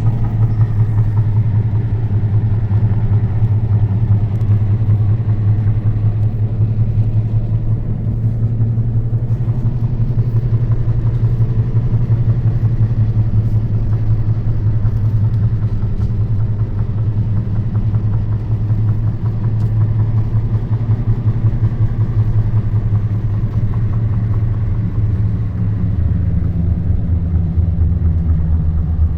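An engine running with a steady low drone, its pitch dropping a little near the end.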